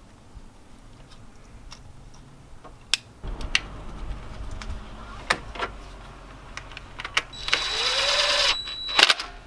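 Scattered sharp metallic clicks from a ratchet and torque wrench as new iridium spark plugs are tightened, over a low hum. Near the end comes a louder burst of hissing noise with a steady high tone.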